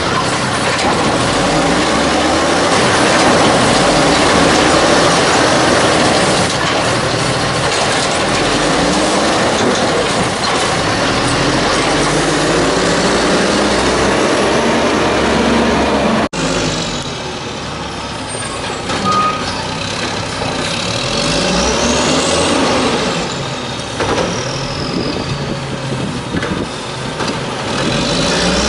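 Natural-gas engine of a 1994 WhiteGMC WX-64 LNG garbage truck running loud and hard with the truck stopped. There is a sharp break about sixteen seconds in, after which the engine note rises and falls in pitch, as in revving.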